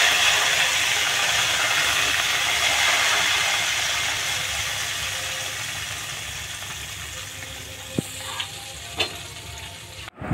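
Hot oil tadka of cumin seeds, sliced garlic and whole dried red chillies sizzling as it is poured onto yogurt, loud at first and dying away steadily as the oil cools. Two light knocks near the end.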